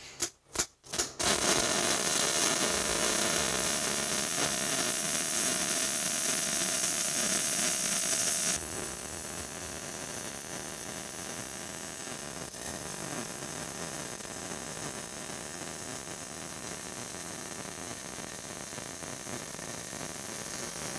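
MIG welding arc with solid (hard) wire running a root pass on steel pipe: a few short stutters as the arc strikes in the first second, then a steady hissing noise that carries on unbroken, its high end easing slightly about eight seconds in.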